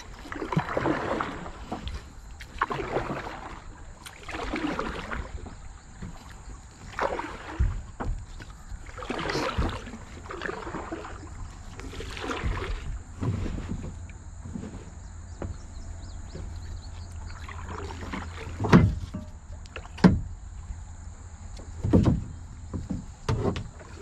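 Kayak paddle strokes: the blades dipping and pulling through the water with a splash about every two seconds. In the last several seconds there are a few sharp knocks.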